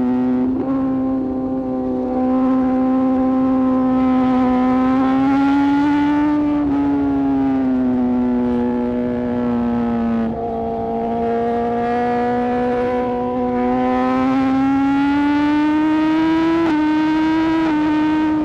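Suzuki GSX-R1000R inline-four engine pulling at high revs under way, its pitch climbing slowly, dropping abruptly about ten seconds in, then climbing again. Wind and road noise run underneath.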